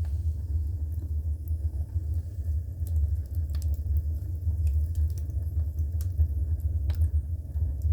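Oak and hickory wood fire burning in the open firebox of a Clayton add-on wood furnace: a steady low rumble with scattered sharp crackles and pops.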